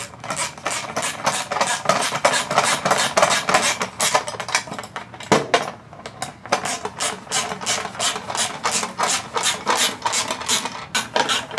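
Ratchet wrench with a 10 mm socket clicking rapidly in runs, tightening licence-plate screws into nylon lock nuts. Brief pauses come about five and six seconds in.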